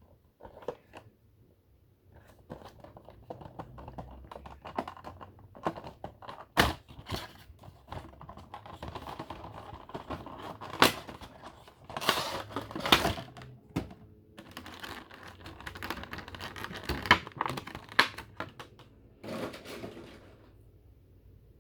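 Funko Pop vinyl figure packaging being unboxed by hand: cardboard and plastic crinkling and tearing, with many sharp clicks and taps. It stops shortly before the end.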